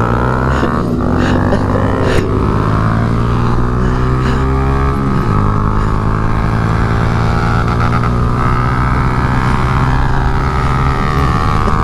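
Small-displacement motorcycle engines running under way during a group ride, with a loud, steady engine note. The pitch drifts and drops about five seconds in.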